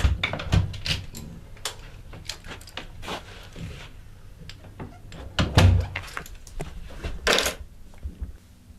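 A door being handled: irregular clicks and knocks, with two heavy thumps, one about half a second in and a louder one a little before six seconds, and a short rattling burst near the end.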